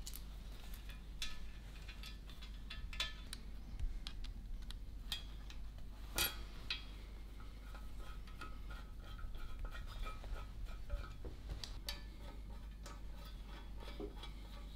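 Metal tools and engine parts being handled on a workbench: scattered light metallic clicks and clinks, a few ringing briefly, with the sharpest about six seconds in.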